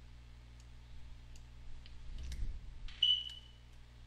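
Scattered faint computer keyboard and mouse clicks over a low steady hum, with a sharper click and a short high ping about three seconds in.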